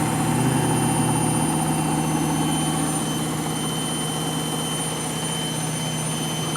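Candy washing machine on its final spin with an overloaded drum: a steady motor-and-drum whir with a low hum, easing a little about halfway through.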